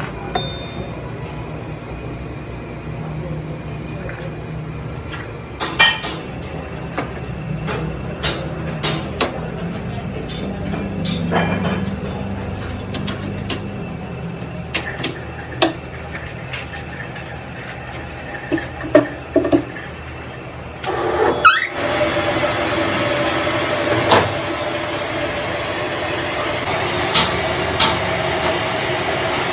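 Workshop noise: a steady low hum with many sharp metal knocks and clicks, as tools and parts are handled. About two-thirds of the way through, a short rising sound gives way to a louder, steadier machine noise.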